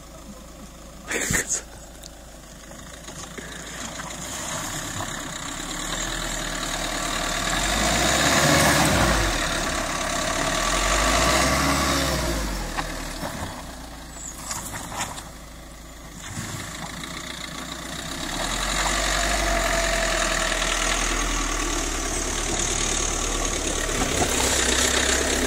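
Suzuki Jimny's engine running as the small 4x4 climbs a rutted dirt track, its sound swelling and falling with the throttle, then holding louder and steady as it drives up close.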